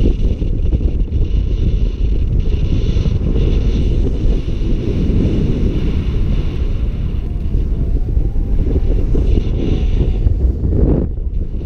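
Wind buffeting the microphone of a camera on a paraglider in flight: a loud, steady low rumble of rushing air that drops off briefly near the end and then returns.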